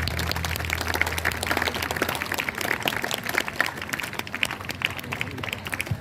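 Audience clapping and applauding, a dense patter of hand claps. The last of the dance music's bass dies away in the first half-second.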